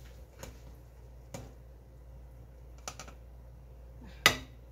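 Four short, light knocks and clicks, the loudest near the end, from cooked rice being scooped out of an aluminium cooking pot into a serving dish.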